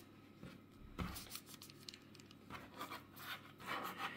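Soft rustling and scraping of parchment paper on a baking tray as raw dough strips are laid on it by hand, with a light knock about a second in.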